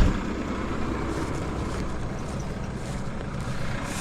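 Tractor engine idling steadily, with wind noise, after a sharp thump right at the start.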